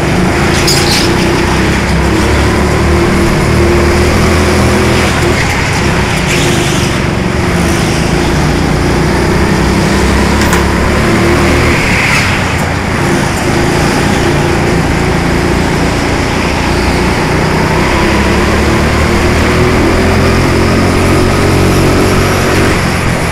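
Four-stroke petrol go-kart engine running hard under throttle, loud and steady, its pitch shifting up and down as the driver opens and eases the throttle.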